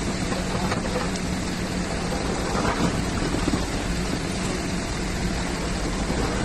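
Steady workshop machinery noise: a constant hiss with a low hum under it, unbroken throughout.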